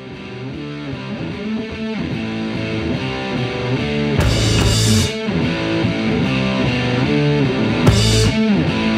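Background rock music led by electric guitar, fading in over the first couple of seconds, with loud crash hits about four and eight seconds in.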